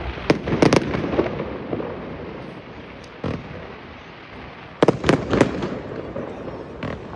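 Fireworks display with aerial shells bursting: a quick volley of bangs just after the start, a single bang a little past three seconds and another volley near five seconds, with rumbling between the bursts.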